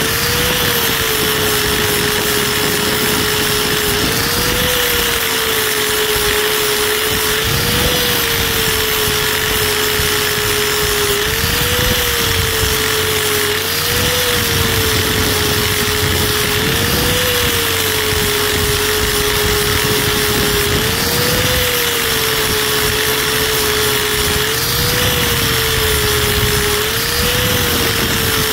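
Small 4-inch angle grinder running continuously with an 80-grit flap wheel, grinding the rubber side lugs off an RC crawler tire's sidewall. Its steady motor whine lifts briefly in pitch about every three to four seconds.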